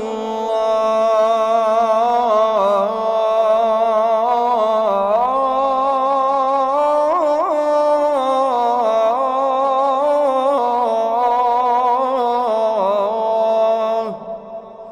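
A muezzin's solo voice singing the adhan, drawing out the phrase 'illa Allah' in one long melismatic line of held, ornamented notes that waver and turn. The phrase ends about fourteen seconds in and trails off.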